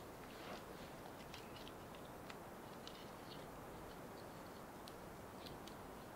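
Campfire crackling faintly: sparse, irregular sharp pops and ticks over a low steady hiss.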